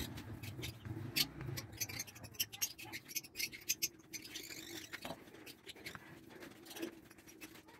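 Small paint roller rolling paint along a wooden board: a faint, scratchy crackle of many light clicks.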